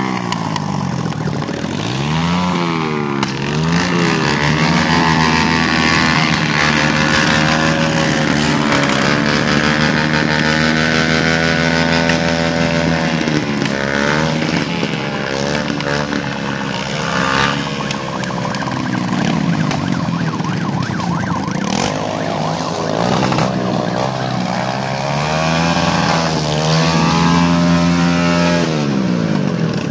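Several small motorcycle engines revved up and down again and again, their pitch rising and falling in overlapping sweeps, the deliberate noise-making of riders welcoming the New Year.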